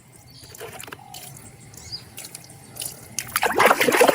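A few faint handling clicks, then about three seconds in, water starts running and splashing as a muddy plastic toy animal is washed.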